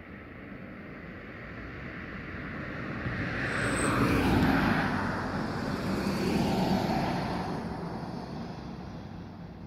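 Road traffic passing close by: engine and tyre noise swells to a peak about four seconds in, peaks again a couple of seconds later as a pickup truck goes by, then fades away.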